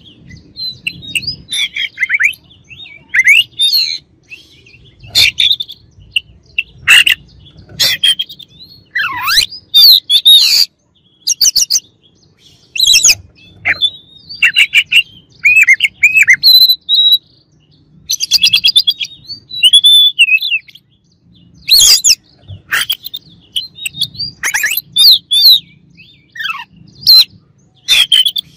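Oriental magpie-robin (kacer) singing loudly: a run of short, varied phrases of whistles, chirps and harsh notes, one after another with brief pauses, some phrases sliding down in pitch.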